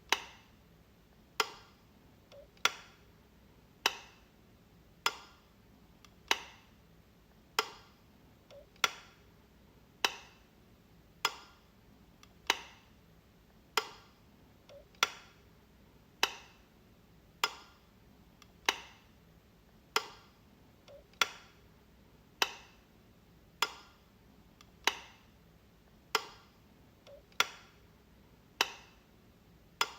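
Light switch flicked over and over: one sharp click about every second and a quarter, with a fainter extra click slipping in every few clicks.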